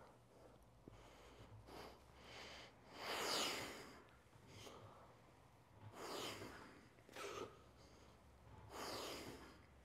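A man's heavy breathing during lat pulldown reps: several noisy exhales about three seconds apart, the loudest about three seconds in.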